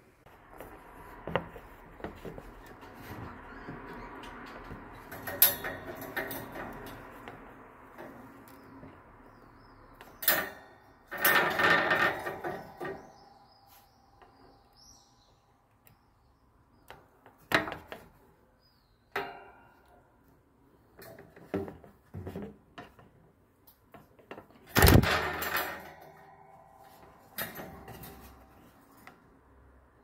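Irregular clicks, knocks and rustling from a budgerigar and its wire cage, with a few short faint chirps; louder bursts of rattling come about 11 and 25 seconds in.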